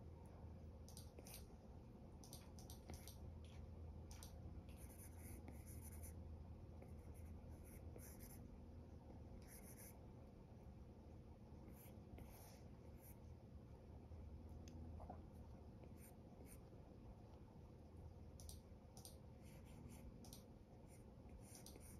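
Apple Pencil tip scratching and tapping on an iPad's glass screen in short, irregular sketching strokes, faint over a low steady hum.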